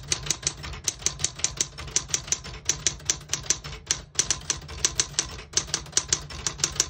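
Keys of a 1972 Smith-Corona Super Sterling manual portable typewriter striking in a quick, steady run of sharp clacks, about six a second, with a few short pauses, as a sentence is typed. The keys type cleanly without sticking or skipping.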